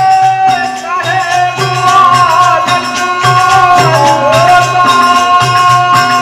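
Birha folk music played live: a voice and harmonium holding long notes, the voice wavering in places, over a steady beat of hand drums and the clashing of small hand cymbals.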